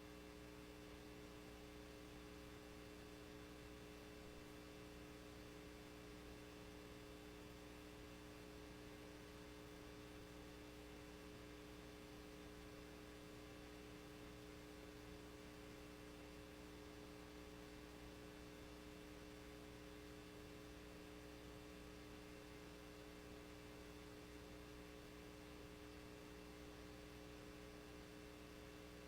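Near silence after the alert audio cuts off: a faint, steady electrical hum of several held tones over a low hiss, unchanging throughout.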